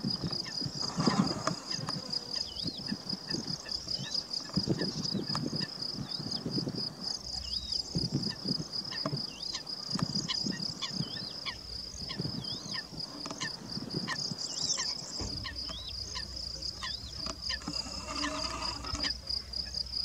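A steady, high-pitched insect trill, pulsing evenly like a cricket's. Short chirps that bend in pitch sound over it until about two-thirds through, with irregular low rumbles underneath.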